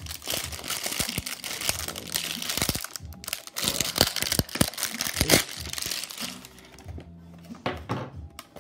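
Plastic shrink wrap crinkling and tearing as it is pulled off a cardboard trading-card box, dense for about six seconds and then stopping, followed by a few light clicks of the cardboard being handled. Soft background music plays under it.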